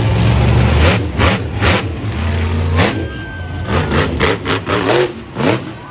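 Monster truck engine running loud, then revved in a series of short, sharp throttle bursts, with the pitch rising and falling between them.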